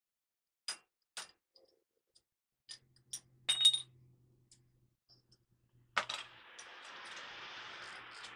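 Metal hand tools tapping and clinking against a truck's steel wheel hub, a few separate clinks with the loudest, ringing clank about three and a half seconds in. About six seconds in a sharp click is followed by a steady rushing noise.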